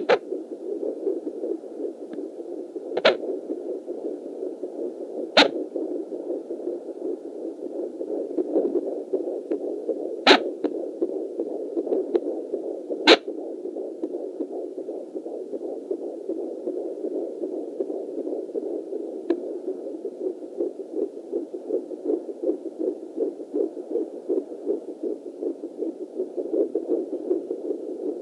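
Fetal heartbeat at nearly 15 weeks, played through a handheld home fetal Doppler's speaker: a fast, steady whooshing pulse. Four sharp clicks cut across it in the first half.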